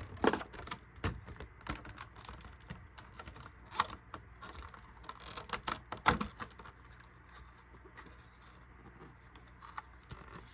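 Scattered light clicks and taps of small collectible items and packaging being handled, most of them in the first six seconds and only a few after.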